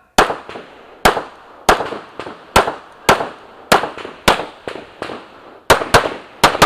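Semi-automatic pistol fired in a string of about a dozen shots, roughly one every half second to a second, with quicker pairs near the end; each report is followed by a short ringing echo.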